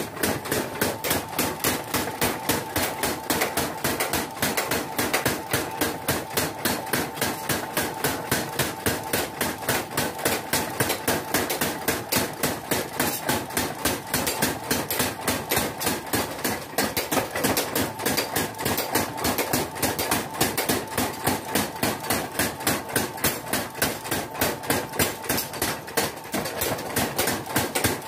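Motor-driven mechanical forging hammer pounding hot leaf-spring steel in rapid, steady blows, forging a golok (machete) blade, with a hand hammer striking on an anvil alongside.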